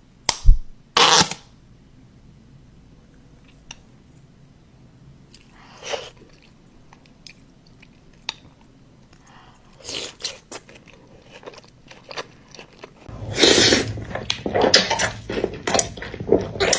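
Close-miked eating sounds of fufu with egusi soup: soft wet chewing, smacking and small mouth clicks. There is a sharp bump and a short noisy burst right at the start, the sounds are sparse through the middle, and they turn dense and louder from about three-quarters of the way in.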